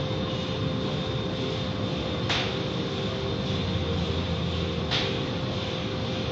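Automatic tunnel car wash machinery running: spinning cloth wash brushes and water spray, a steady mechanical noise with a constant hum, heard through the window glass. Two short hisses come about two seconds in and again near five seconds.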